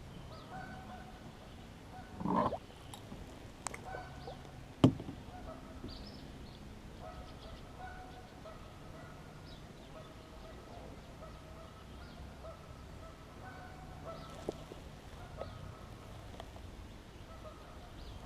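Birds calling repeatedly with short, irregular calls. A brief noise comes about two seconds in and a sharp knock about five seconds in.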